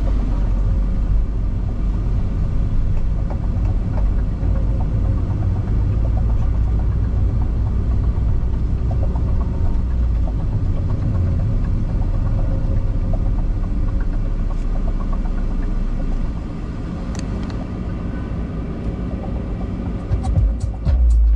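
Car driving along a road: a steady low rumble of engine and tyres. It eases off somewhat about sixteen seconds in, and a few louder thumps come near the end.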